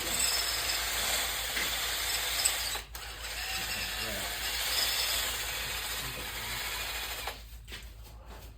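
A wire wheel scrubbing an engine part clean, a steady rough hissing scratch with a brief break about three seconds in, easing off near the end.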